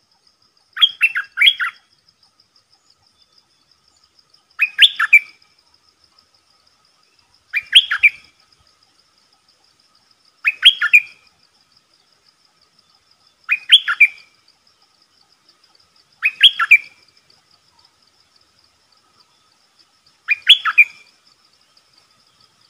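Caged decoy bulbul (Thai นกดอกแตง, Malay merbah lekir) calling, giving a short burst of a few rapid chirping notes seven times, about every three seconds. A faint steady high buzz runs underneath.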